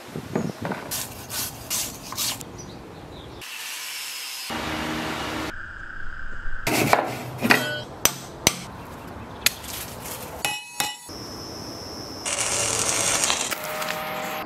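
A quick run of axe-restoration workshop sounds: a wire brush scrubbing the rusty axe head in a few strokes, then several sharp hammer blows on a steel drift driving the old handle out of the axe eye, then a welding arc crackling near the end.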